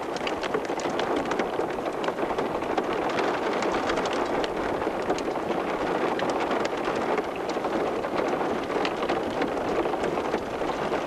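Rain falling steadily, with many sharp drop hits.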